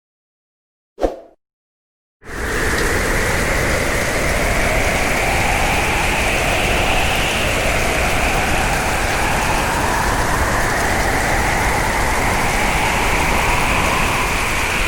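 Hurricane-force wind as a sound effect: a steady rush of storm noise with howling, whistling tones that slowly drift up and down in pitch, starting about two seconds in after a brief knock.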